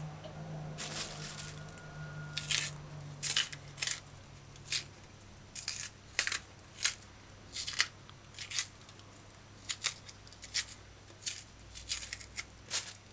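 Kitchen knife cutting and scraping through the tough peel of green bananas: a steady run of short, crisp cuts, one or two a second, as the skin is scored and stripped off.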